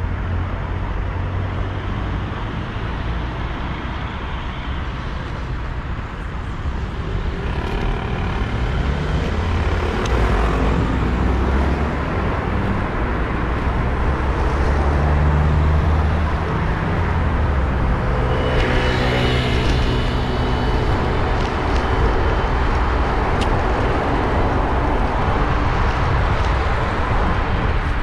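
Urban road traffic heard from a bicycle-mounted action camera: motor vehicle engines running alongside and passing close by over a steady low rumble. About two-thirds of the way through, one vehicle passes close with its engine note dropping in pitch.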